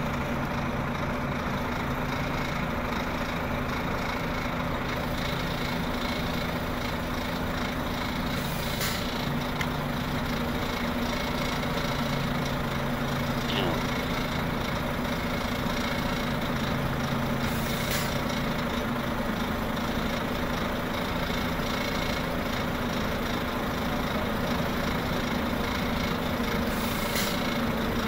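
Heavy-haul transporter's diesel engine running steadily at low revs, a constant low hum.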